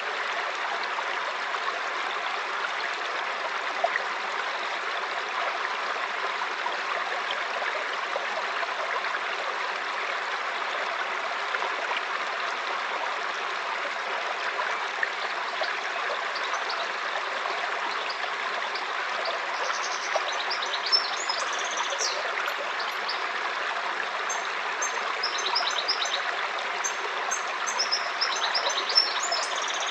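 River water flowing in a steady rush. Songbirds begin chirping about two-thirds of the way through, in short high calls that come more often near the end.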